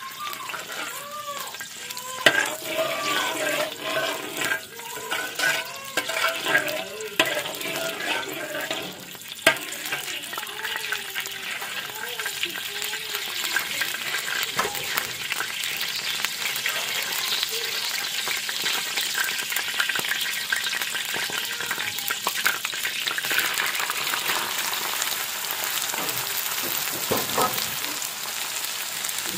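Hot oil sizzling in a wok, with a metal spatula stirring and scraping and now and then knocking against the pan. Chopped greens go in partway and are stir-fried in the oil, and the sizzle runs on steadily.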